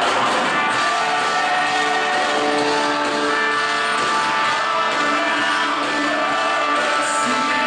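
Live band music with guitar and singing over long held notes.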